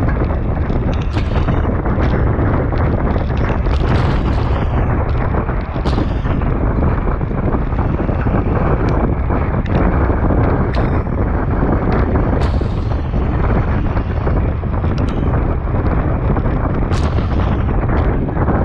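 Heavy wind buffeting on a bike-mounted action camera's microphone as the rider moves at race speed, a continuous low rumble with scattered sharp clicks and knocks over it.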